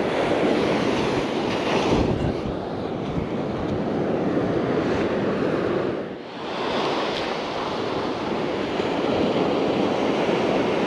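Ocean surf breaking and washing up the beach, with wind buffeting the microphone, steady throughout apart from a brief dip about six seconds in.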